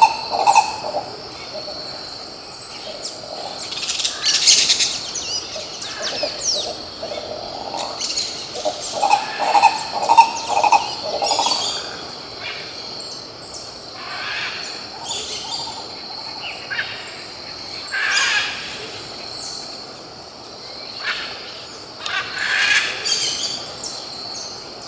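Green ibis calling: runs of rapid, repeated low notes near the start and again about ten seconds in. Other birds chirp higher up, over a steady high-pitched drone.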